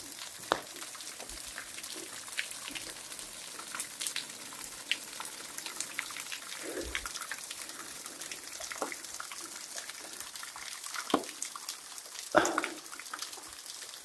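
A small waterfall running down a rock face: falling water splashing onto rock as a steady hiss, with scattered drips and a few sharper splashes.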